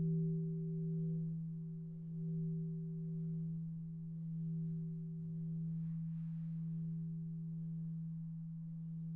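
A church bell dying away after its ringing has stopped: a low, steady hum tone with a few fainter higher partials, swelling and fading slowly in waves and gradually getting quieter, with no new strikes.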